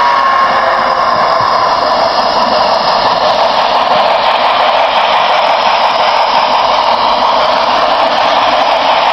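HO-scale model steam locomotive and freight cars running past close by on the track, a loud, steady rushing noise.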